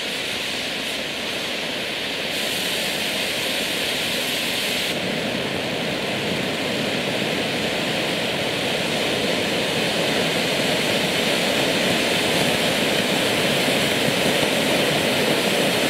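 A 250 g ground fountain firework (Swiss Supervulkan No. 2, gold with strobe stars) spraying sparks with a steady rushing hiss that grows slightly louder as it burns.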